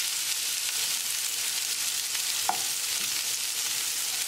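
Crookneck squash pieces sizzling in olive oil in a nonstick frying pan over high heat, a steady frying hiss, while a spatula stirs and turns them. One sharp click about halfway through.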